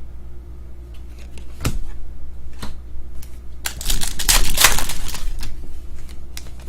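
Trading cards and pack wrapping being handled during a box break. A few light clicks and taps, then a burst of rustling and crinkling about four seconds in.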